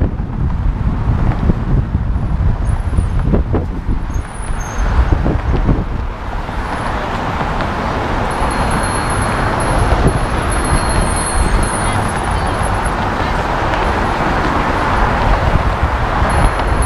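Road traffic passing close by on a bridge roadway: a steady rush of tyres and engines that swells and thickens over the second half.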